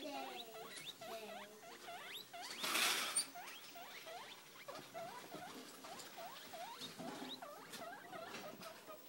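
Young guinea pig squeaking over and over in short upward-hooking squeaks, about two a second. There is a brief louder burst of rustling about three seconds in.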